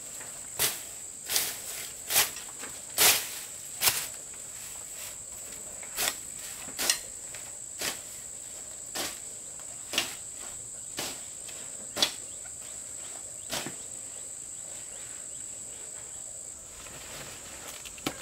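Steady high-pitched insect drone that stops near the end, over a series of short, sharp rustles and snaps of vegetation, about one a second at first and sparser later.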